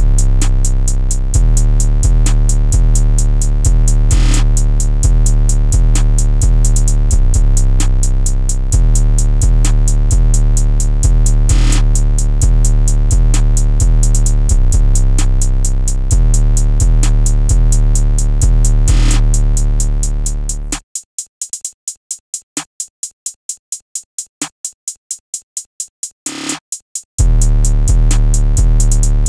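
Background electronic music with a drum-machine beat and deep synthesizer bass. About 21 seconds in, the bass and drums drop out and leave only a fast ticking pattern, then the full beat comes back about six seconds later.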